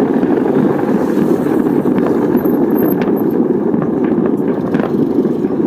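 Distant fireworks display heard as a steady low rolling rumble, with a few faint sharper cracks about three seconds in and again near five.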